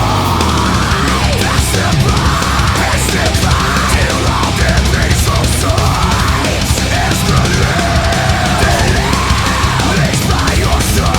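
Loud heavy rock music with drums and a melodic line gliding up and down.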